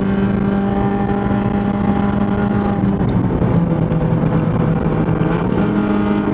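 Spec Miata race car's four-cylinder engine heard from inside the cockpit at a steady, loud drone. Its pitch drops about three seconds in, then steps back up near the end.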